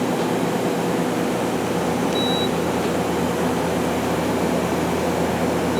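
Steady hum of an Okuma LB200MW CNC turning center standing under power, its pumps and fans running, with one short high beep about two seconds in.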